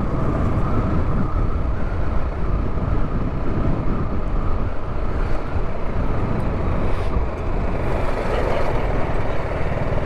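Motorcycle riding slowly, its engine running under steady wind noise on a helmet-mounted microphone.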